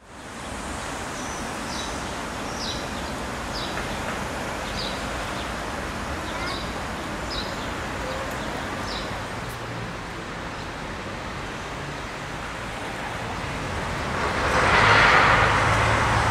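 Outdoor town ambience: a bird gives about eight short falling chirps, roughly one a second, over a steady background hum. Near the end a car passes close by and is the loudest sound.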